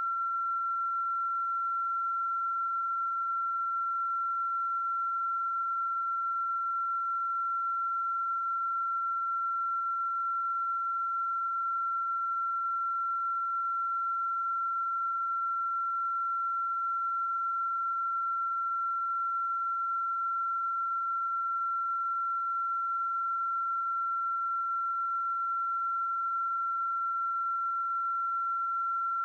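A single steady, high-pitched electronic tone, an unbroken whine that holds the same pitch and loudness throughout, with fainter higher tones above it.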